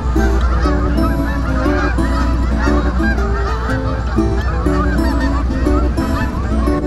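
A large flock of Canada geese honking, many overlapping calls at once, over a steady low rumble.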